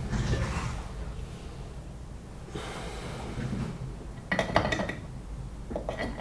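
Two soft rasping strokes, then two quick clusters of light metallic clinks with a short ring.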